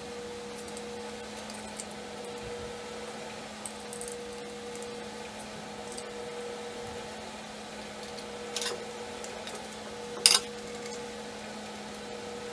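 Scattered light clicks and knocks of metal parts and tools being handled while a KitchenAid stand mixer is put back together, the sharpest click about ten seconds in, over a steady low hum.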